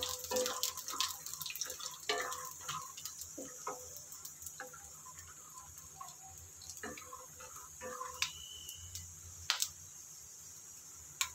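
Peanuts frying in mustard oil in a steel kadhai: a steady faint sizzle, with a wooden spatula clicking and scraping against the pan in quick strokes for the first few seconds. The stirring then thins out, leaving the sizzle with a few sharp pops.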